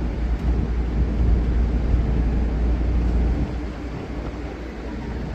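Steady low rumble aboard a moving river tour boat, easing a little after about three and a half seconds.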